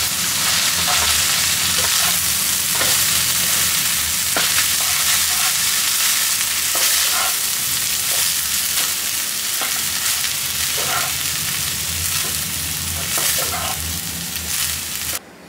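Chicken fried rice sizzling in a pan as it is stirred and tossed with a wooden spatula, the spatula scraping the pan every second or two. The sound cuts off abruptly near the end.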